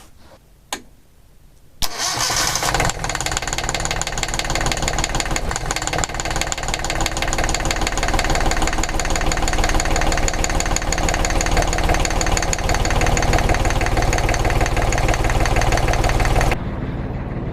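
Small Volvo Penta marine diesel engine cranked by its starter and catching about two seconds in, then running steadily at idle while it draws antifreeze through the raw-water cooling system to winterize it. Near the end the sound drops in level.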